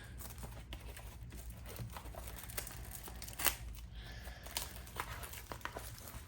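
A sealed box of trading cards being opened by hand: its wrapping crinkling and tearing, with scattered small clicks and one sharper snap about three and a half seconds in.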